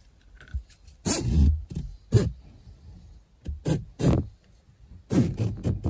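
A nylon webbing furniture strap being pulled tight through its cam buckle in a series of short tugs, about six in all, with rustling and knocking handling noise.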